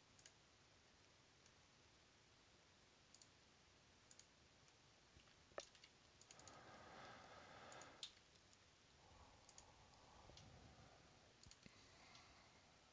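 Faint computer mouse clicks, single and in small clusters, scattered through near silence, with two spells of soft rustling between them.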